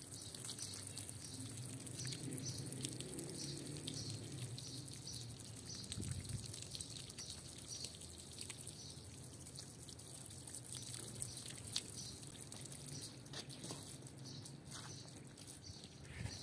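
Water from a hose pouring and splashing onto a mud-caked rug, trickling and dripping as it runs off into puddles on the floor.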